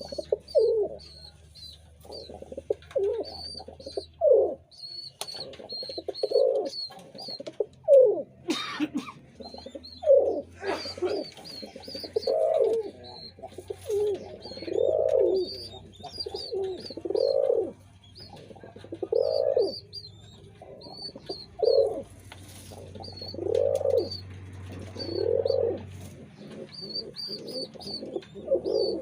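Pigeons cooing over and over, each coo a low swelling call of about a second, with high, rapid chirping from other birds above them.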